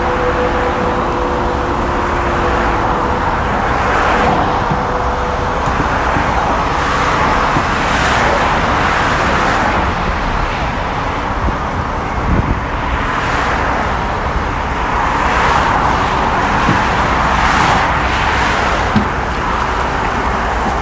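Continuous road-vehicle noise, with vehicles passing and a steady low rumble; the rush swells and fades every couple of seconds.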